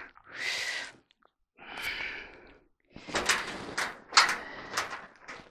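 Two short breathy exhalations, then a series of light clicks and scrapes of hands and screws working against the dryer's sheet-metal cabinet.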